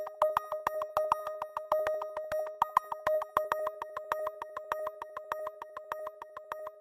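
Electronic background music thinning to a sustained synth tone with a quick, even ticking pulse, the bass notes dropping out at the start.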